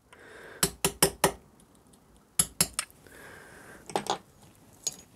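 Small steel scriber prying and scraping at the crimped metal tabs on the back of an old motorcycle ignition switch held in a steel vise. Sharp metallic clicks come in quick runs of three or four, with short faint scrapes between.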